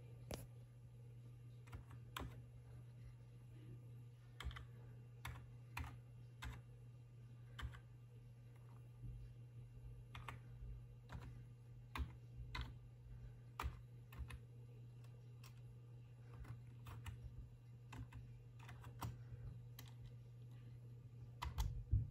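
Computer keyboard keys pressed one at a time at an uneven pace as a password is typed into a login screen, with a few louder key presses close together near the end. A steady low hum runs underneath.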